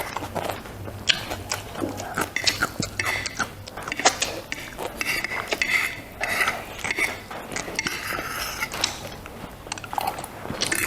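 Close-miked eating sounds: chewing and wet mouth noises with many short, irregular clicks, and now and then a utensil tapping a dish.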